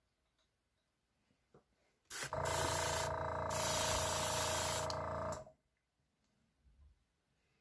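Airbrush spraying paint. A small compressor hums steadily while air hisses through the airbrush for about three seconds, starting about two seconds in. The hiss thins out briefly partway through.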